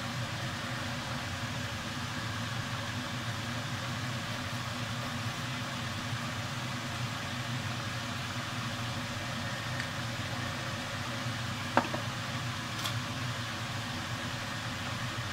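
Eggplants frying in a pot of oil and tomato broth boiling in a pan, a steady sizzle and bubble over a low steady hum. There is one light click about twelve seconds in.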